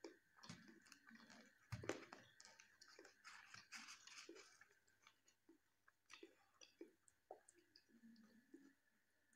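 Quiet close-miked eating sounds: chewing and small mouth clicks. Fingers tear paratha about three to four seconds in, and a faint steady high whine runs underneath.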